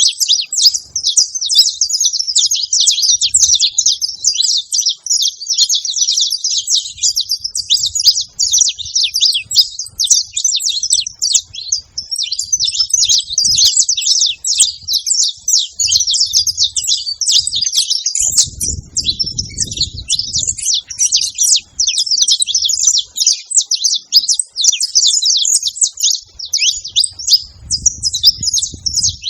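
Male and female saffron finches chirping and singing nonstop in rapid, high, overlapping notes.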